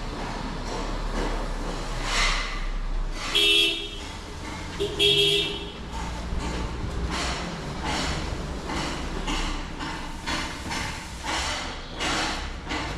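Passing road traffic with a vehicle horn honking twice, briefly, about three and a half and five seconds in.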